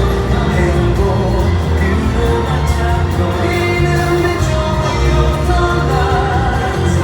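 Pop song with singing and a steady beat.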